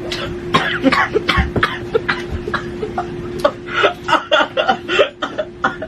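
A person coughing over and over in short, sharp fits from the burn of hot chili-powder candy, with a steady hum underneath.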